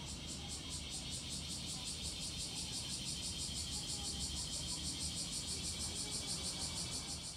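Insects trilling in a rapid, even pulse, about seven beats a second, as a steady high buzz over a low rumble.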